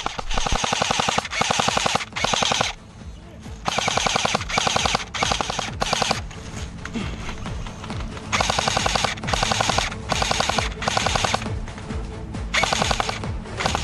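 Airsoft rifle firing repeated short full-auto bursts, each about half a second of rapid clicking shots, in groups with short pauses between.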